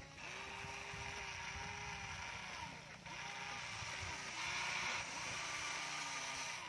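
Electric motors and plastic gearboxes of a remote-control toy excavator whining as it tracks, slews and moves its arm, in several stretches whose pitch dips as each movement slows and stops.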